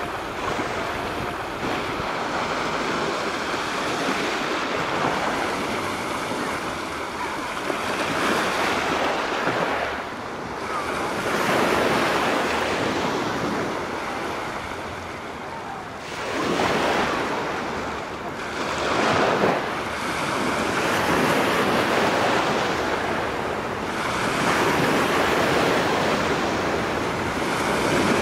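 Small sea waves breaking and washing onto the shore, the surf swelling and easing in repeated surges a few seconds apart.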